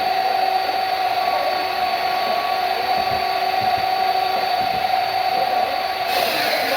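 A woodworking power tool's motor running steadily with a high, constant whine; near the end a louder hiss joins it.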